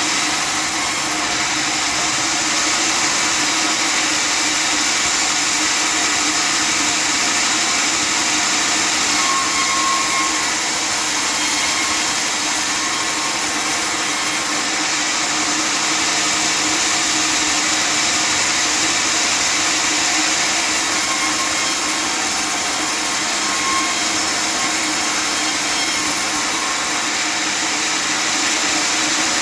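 Custom-built table sawmill running steadily, its saw cutting through wood with an even, continuous noise.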